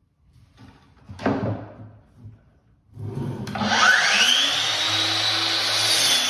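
A knock about a second in, then the DeWalt 60V FlexVolt brushless 12-inch sliding miter saw starts about three seconds in: its whine rises as the blade spins up, then runs steadily through a 45-degree cut in wood.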